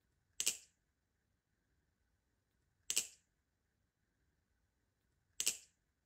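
Balisong trainer clacking three times, about two and a half seconds apart: the handles and trainer blade striking together in quick double clacks as the knife is flipped through a trick.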